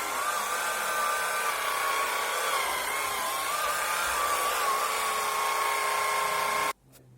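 Small motor of an electric broom running with a steady whine that wavers slightly in pitch over a hiss of rushing air. It cuts off suddenly near the end.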